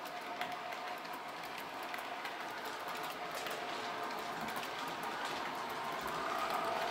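Roco H0-scale ICE Velaro model train running, with many fine clicks of its wheels over the track and a steady electric whine from its onboard sound decoder. It grows slowly louder toward the end.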